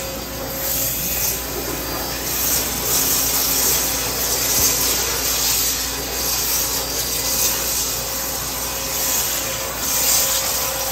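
Flow CNC abrasive waterjet cutting thin stainless steel sheet: the high-pressure jet hisses steadily, swelling a little now and then.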